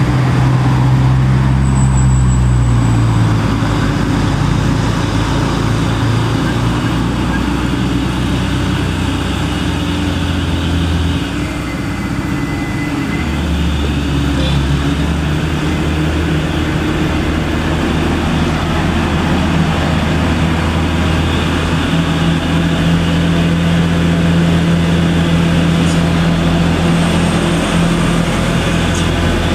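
Mitsubishi Fuso Fighter diesel truck engine running steadily as the loaded truck drives slowly through a bend and draws close. The engine sound dips briefly about eleven seconds in, then its low note changes.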